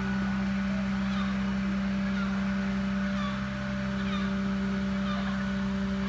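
Steady low drone of a fire brigade aerial ladder truck's engine running to work the ladder, with short falling bird calls about once a second above it.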